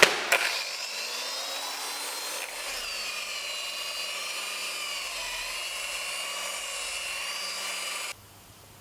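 Electric polishing machine spinning up and running with a steady whine as it buffs wax on Venetian plaster, its pitch sagging slightly under pressure midway; it cuts off suddenly near the end.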